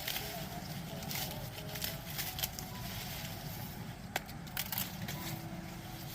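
Corn leaves rustling and being torn from the stalks, with scattered crackles and snaps.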